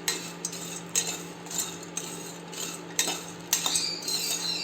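Metal spoon stirring dry spices in a pan, giving irregular clinks and knocks as it scrapes against the metal, with a brief ringing clink near the end.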